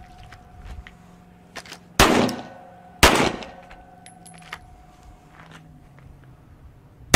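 Two handgun shots about a second apart, each dying away in a short echo, and a third shot at the very end. Faint clicks and rattles come in between as the shooters draw and holster.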